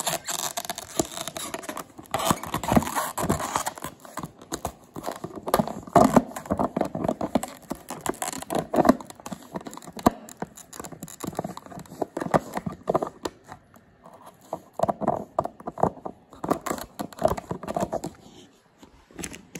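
Golden retriever puppy chewing an empty plastic drink bottle: irregular crackling and crunching of the thin plastic in uneven bouts with short pauses.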